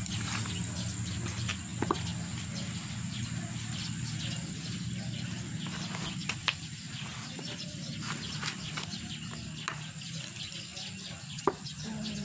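Small hand trowel scraping and scooping a dry potting mix of soil and carbonized rice hull in a plastic basin, giving a grainy rustle. A few sharp knocks ring out about two seconds in, twice in the middle and near the end.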